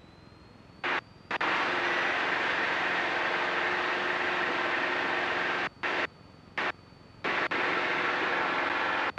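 Engine and propeller noise of an RV-6 light aircraft, heard through the cockpit intercom as a steady drone. It is absent for about the first second, then switches on abruptly and cuts out briefly several times between about 6 and 7.5 seconds in, as a voice-activated intercom squelch does.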